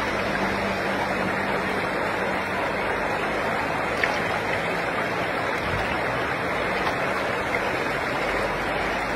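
Shallow stream rushing over rocks: a steady, even wash of flowing water.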